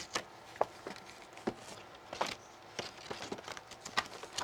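Paper envelope being opened and its leaflets handled: soft paper rustling with scattered light clicks and taps at irregular moments.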